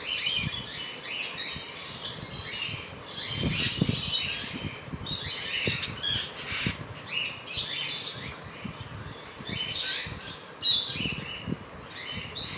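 Small parrot chick calling in repeated short squawks and chirps while held to have a closed leg ring slipped over its foot, with scattered soft handling bumps.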